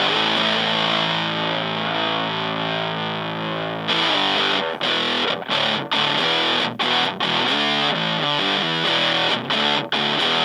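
Electric guitar, a Fender Stratocaster, played through a Super Power-Fuzz (a modded Big Muff-style fuzz pedal) into a Fender Blues Junior amp: heavily fuzzed tone. A held chord rings for about four seconds, then a riff of short, choppy chords with brief stops between them.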